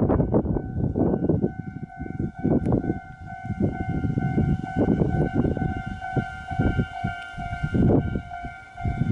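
Railway level-crossing warning alarm sounding, a steady electronic ringing of several pitched tones that starts about half a second in, over a loud, uneven low rumble.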